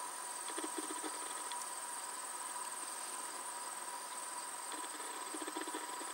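Insects, likely crickets, trilling steadily in a high-pitched chorus.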